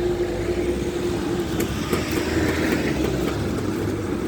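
Vehicle engines running: a steady engine drone gives way about a second and a half in to a rougher, noisier rumble, with a few faint clicks.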